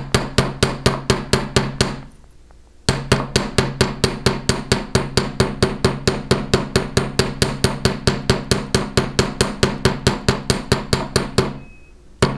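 Domed face of a chasing hammer striking copper wire on a steel bench block in rapid, even blows, about six a second, with a steady metallic ring beneath. The wire bale is being flattened to make room for design stamps. The blows pause briefly about two seconds in and stop shortly before the end.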